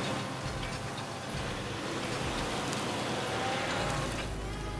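Claas tractor engine running steadily while it pulls a tillage implement through stubble. Near the end a deeper low hum sets in.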